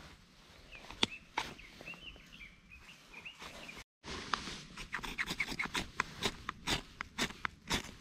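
Steel knife spine scraped again and again down a ferrocerium fire-starter rod, a quick run of sharp scraping strikes about three a second throwing sparks onto fatwood tinder, starting after a cut about four seconds in. Before that, a few handling clicks as the fire starter is taken out, with a bird chirping.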